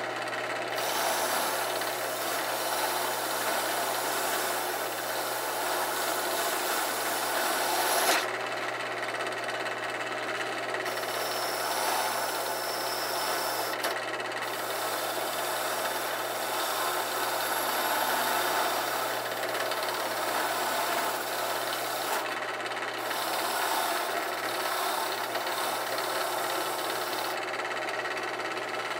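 Bench drill press spinning a wire cup brush with a small forged steel horseshoe piece held against it: a steady motor hum under the scratchy rasp of the wire bristles scouring the metal. The scratching eases off for a few seconds several times as the piece is lifted away and repositioned.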